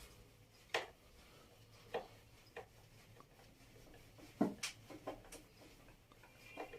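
Scattered small clicks and knocks of hand work on an angle grinder's plastic handle housing as a thin screw is fitted to lock the side handle, about eight in all, the loudest about halfway through.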